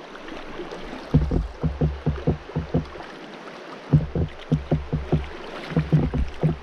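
Water slapping against a kayak hull in quick, uneven hollow knocks that come in runs with short pauses, over a steady hiss of moving water.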